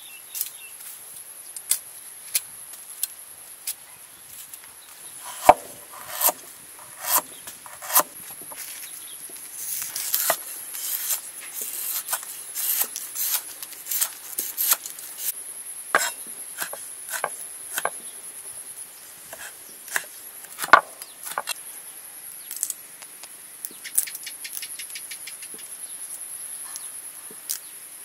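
A large cleaver chopping lemongrass and chilies on a wooden chopping board: irregular sharp knocks of the blade striking the board, bunched into quicker cutting in places, with a fast run of light taps near the end. A steady high insect buzz runs underneath.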